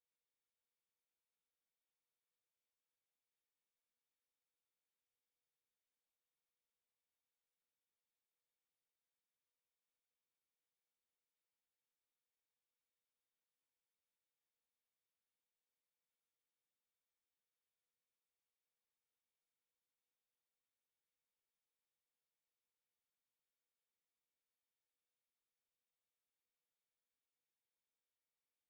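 A steady, loud 7777 Hz sine-wave test tone: one pure high-pitched note held without change.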